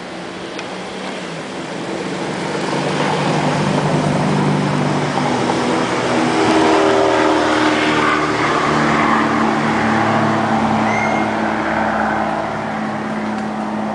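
Engine noise of a passing vehicle: a steady hum under a rushing sound that swells to its loudest about halfway through, then fades slowly.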